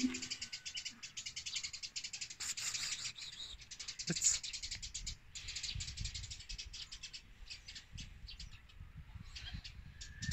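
Two cats chewing raw chicken scraps, a fast run of wet crunching and clicking as their teeth work through the meat.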